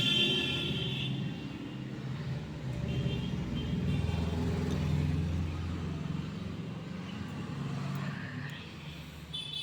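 A motor vehicle's engine rumbling as it passes, loudest about halfway through and then fading. A high, steady tone dies away in the first second.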